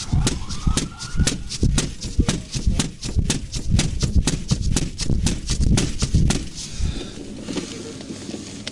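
A fast, even run of sharp knocks, about four or five a second, stopping about six and a half seconds in, with a short rising wail near the start.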